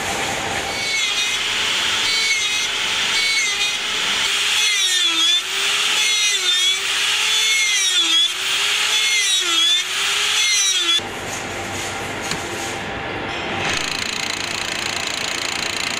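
Motor-driven bench fixture spinning an electric-motor armature, with a whine whose pitch dips and recovers about every one and a half seconds as it is loaded. About eleven seconds in it cuts off abruptly, giving way to steadier machine noise.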